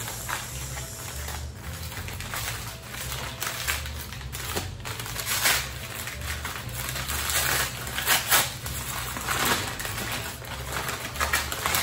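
Brown kraft packing paper crinkling and rustling as it is unwrapped by hand, in irregular crackles with a few louder crunches.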